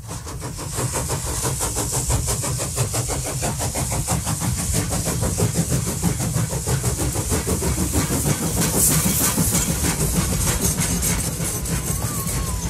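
A train running: a fast, even rhythmic pulsing over a steady low rumble, fading in at the start.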